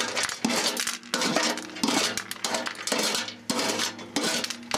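Repeated scraping and clinking as a utensil clears melted capacitor remains from the floor of a microwave oven, in short irregular strokes.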